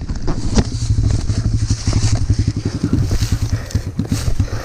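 Off-road motorcycle engine idling, an even low putter of about ten beats a second.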